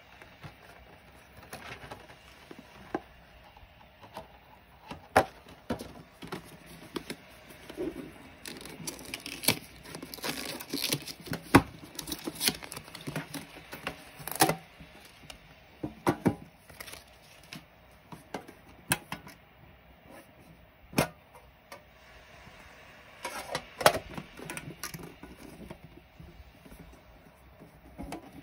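Hands handling plastic-packaged stationery: crinkling plastic packaging, with scattered sharp taps and clicks as the items are picked up and set down on the table. The crinkling is densest in the middle and again near the end.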